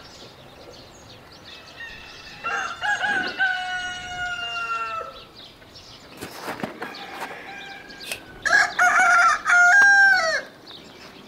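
Rooster crowing twice, a few seconds apart: each crow is a long held call, the first sliding gradually down and the second dropping away at the end. A few short sharp knocks fall between the crows.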